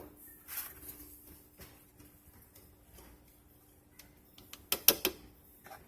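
Dishes and utensils being handled in a kitchen: a few scattered light knocks and clicks, with a cluster of sharper ones about five seconds in, over a faint steady hum.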